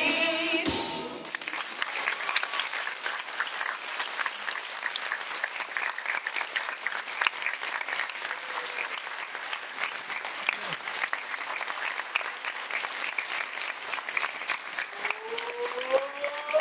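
Audience applauding steadily in a theatre as the dance music cuts off about a second in.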